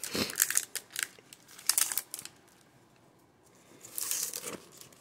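Crinkling of a plastic trading-card pack wrapper and cards being handled, in two spells of rustling with a quiet pause of about a second and a half between them.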